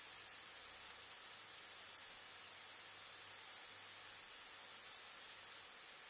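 Onions sautéing in a frying pan: a steady, faint sizzling hiss with a couple of small crackles past the middle.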